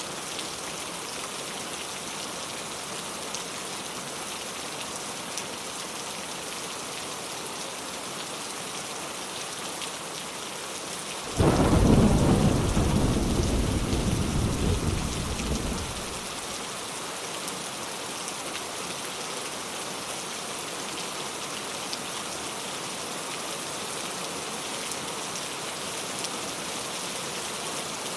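Steady rain falling, with a sudden clap of thunder about eleven seconds in that rumbles low and fades away over about five seconds.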